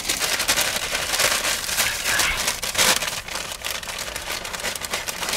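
Paper takeaway bag rustling and crinkling as hands open it and rummage inside.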